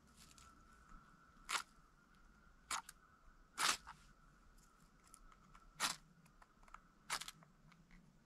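Five short, sharp scrapes of a steel striker drawn along a magnesium fire-starter bar and fire steel, spaced a second or two apart, the third the loudest.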